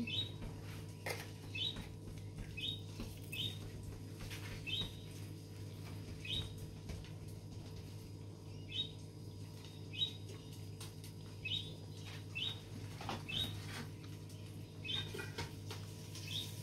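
Short, high bird-like chirps repeating irregularly about once a second, over a steady low hum.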